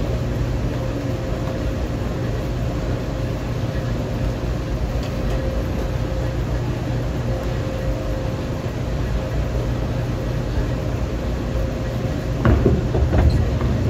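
Steady low rumble and hum of a bowling centre's lane machinery. Near the end a bowling ball lands on the lane with a thud and starts rolling.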